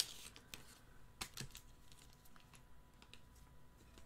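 Faint, irregular light clicks and taps, a handful of them spread unevenly.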